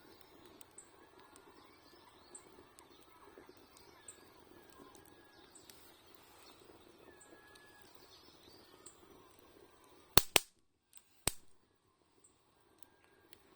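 Birds chirping faintly over the low crackle of a fire, then about ten seconds in a quick pair of sharp, loud cracks and another a second later: wood popping in the bonfire.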